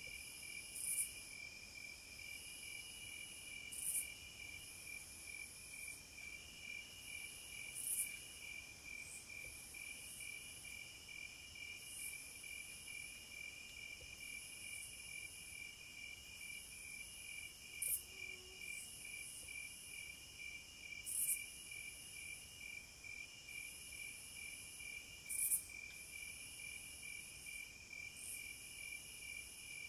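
Cicadas singing in a chorus: a steady, fast-pulsing high trill under a shrill buzz that swells sharply every few seconds.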